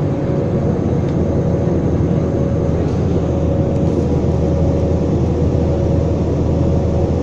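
Inside the cabin of an IndiGo Airbus A320-family jet in flight: the engines' steady roar and airflow noise, with a constant hum tone over it.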